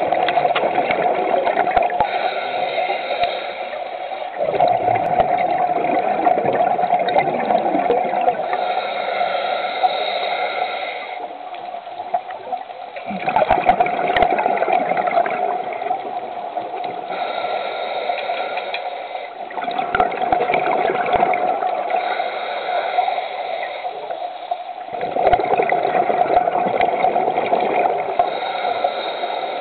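Scuba diver breathing through a regulator underwater: a hiss on each inhale, then a longer burst of bubbling as the exhaled air leaves the regulator. This repeats over four slow breaths.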